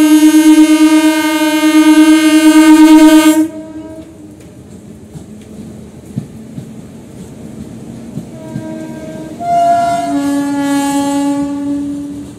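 Indian electric multiple unit (EMU) local train sounding its horn in a long blast of about three and a half seconds as it approaches. It then runs on with a rumble and a few clicks of wheels over rail joints, and gives a second, slightly lower horn blast of about two and a half seconds near the end.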